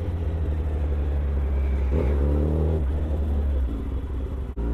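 Kawasaki ZX-10R's inline-four engine running at low speed in city traffic, a steady low rumble as the bike rolls and slows.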